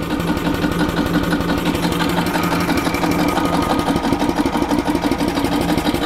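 1996 Yamaha G14 gas golf cart engine cranking steadily on its starter without firing, with a fast, even mechanical rhythm. The cranking primes the fuel system, with the fuel pump drawing fuel through a newly replaced fuel line after the cart ran dry.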